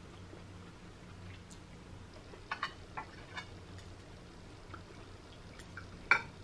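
A metal spoon clinks and taps against the plate a few times while fish is picked apart: a short cluster of light clicks a few seconds in, and one sharper clink near the end, over a faint low hum.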